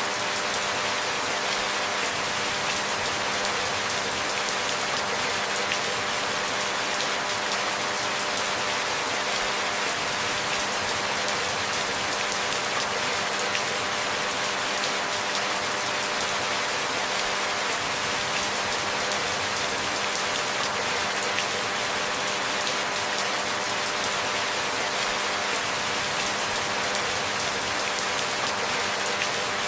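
Steady rainfall: an even hiss with no distinct drops standing out and no change in level.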